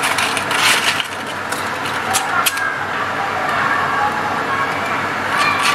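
Oil-soaked paper catching fire among charcoal lumps: a steady hiss of flame with a few sharp crackles, after paper rustles against the coals in the first second.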